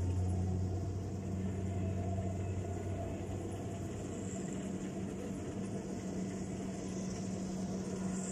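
Rice combine harvester's diesel engine running steadily as it reaps, a low even drone.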